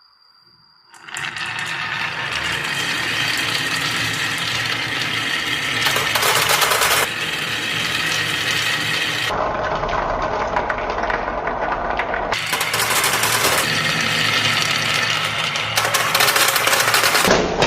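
Many marbles rolling and clattering down a marble run's tracks: a dense, continuous rattle of small clicks that starts about a second in and changes character abruptly a few times.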